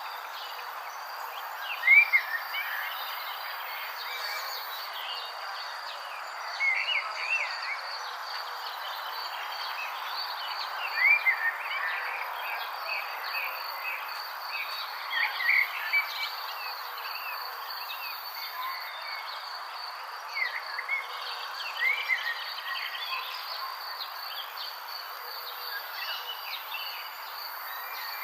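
Nature ambience: a steady insect chorus with a constant high trill over an even background hiss. Short, arching bird chirps break in every few seconds, loudest about two seconds in and again around eleven seconds.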